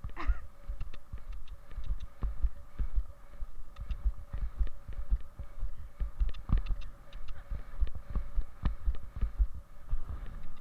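Rapid, irregular low thumps jolting the microphone, over a faint steady hum, with a short rising chirp at the very start.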